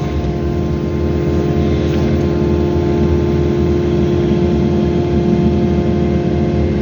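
Excavator's diesel engine running steadily: a continuous low rumble with a steady hum on top.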